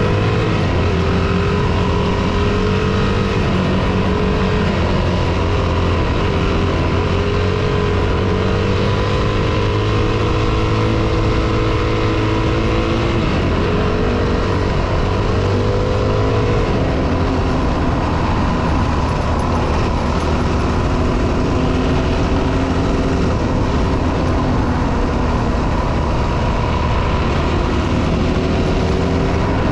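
Four-stroke dirt bike engine running under way on a gravel track, its note rising and falling with throttle and gear changes, mostly in the first half, over a steady rush of wind and tyre noise.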